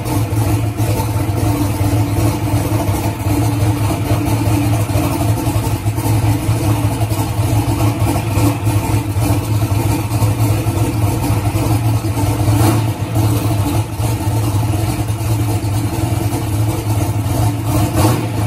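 Ford Coyote 5.0-litre V8 running at a steady idle, a loud, even engine sound that holds constant throughout.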